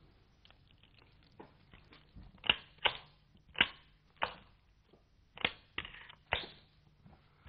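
Manual typewriter keys struck slowly and unevenly, one at a time: a run of sharp clacks, faint at first and louder from about two and a half seconds in.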